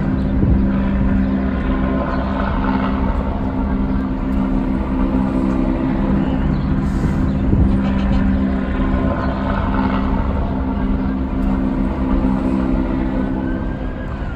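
Heavy engine running steadily at a constant pitch, a low even drone, with a faint tone sliding down in pitch near the end.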